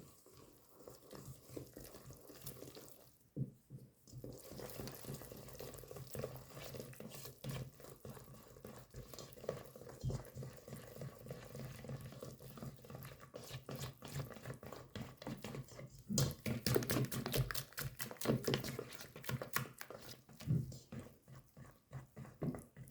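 A runny starter of warm water, sugar, yeast and a little flour being stirred in a bowl: quick wet clicks and scrapes of the utensil, fastest and loudest about 16 to 20 seconds in.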